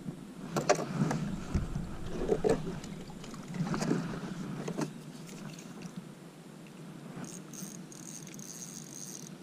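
Knocks and clatter of hands and fishing gear against a plastic fishing kayak's deck and rod holder through the first five seconds, then quieter. A thin high buzz with short breaks comes in near the end.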